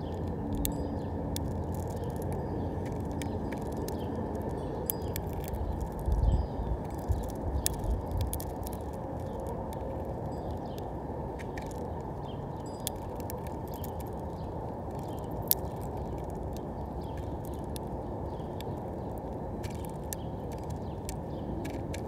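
Scattered sharp clicks of a house finch pecking and cracking sunflower seeds on a plastic tray feeder, over a steady low background noise, with a few low thumps about six to eight seconds in.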